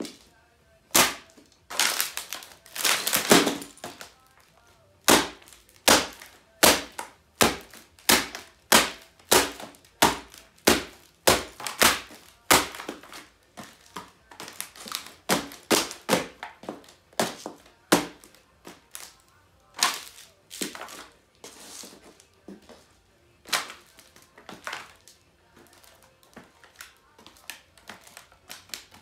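High heels stamping repeatedly on a broken laptop, each step a sharp crack of plastic casing and screen, about one to two a second, sparser toward the end.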